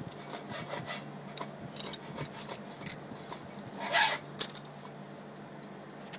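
Hand cutting and scraping at the end of a 7/8-inch coaxial feeder cable: a run of small scrapes and clicks, with one louder rasp about four seconds in.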